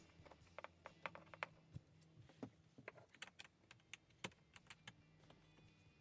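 Faint, irregular light clicks and taps of plastic parts as a caravan window blind and its fittings are handled and worked into the window frame.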